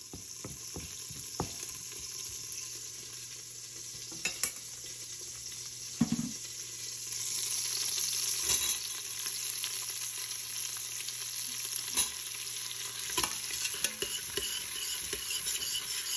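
Cumin seeds sizzling in hot oil for a tadka, the tempering step for dal. A spoon taps and scrapes the pot now and then, and the sizzle grows louder about seven seconds in.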